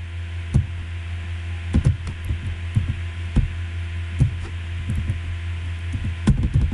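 Computer keyboard keys pressed one at a time at irregular intervals, with a quick run of presses near the end, over a steady low hum.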